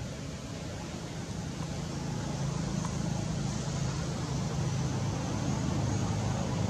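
A steady low rumble with a hiss over it, slowly growing louder.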